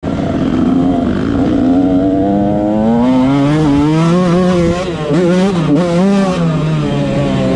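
Motocross bike's engine heard from the rider's own machine under hard acceleration: the pitch climbs, drops back and climbs again several times as it shifts up through the gears.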